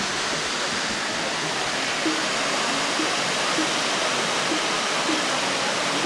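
Waterfall cascading down steep rock slabs: a steady rush of falling water.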